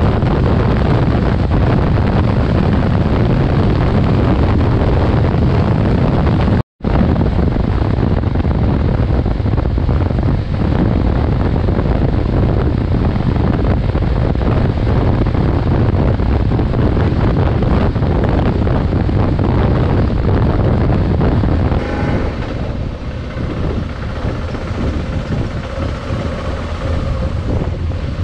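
Wind rushing over an action camera's microphone on a moving adventure motorcycle, mixed with the bike's engine and road noise. It cuts out for a split second about a quarter of the way in, and about three-quarters through it eases and a steadier engine tone comes through.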